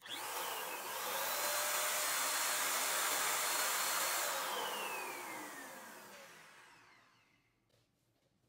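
Electric balloon pump running, blowing air into a balloon with a steady rushing hiss and a whine. About four seconds in the motor winds down, its whine falling as the noise fades out.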